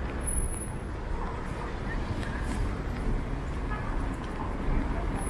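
City street traffic: cars and a bus driving past on a wet road, with passers-by talking.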